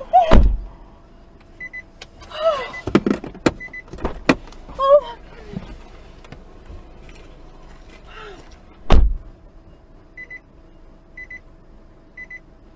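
Sounds from inside a stopped car as the driver gets out: heavy thumps at the start and about nine seconds in, the later one from the car door, with a few knocks and short exclamations between them. An electronic warning chime beeps now and then and about once a second near the end, over a faint steady hum.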